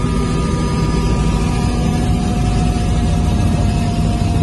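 Robinson R66 helicopter in cruise flight, heard from inside the cabin: the steady drone of its turbine engine and rotors, with several held whining tones over a constant low rumble.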